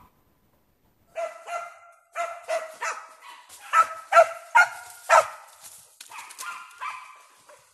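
Hunting dogs barking and yelping in a quick string of high-pitched barks, starting about a second in and loudest in the middle, then trailing into longer drawn-out yelps near the end.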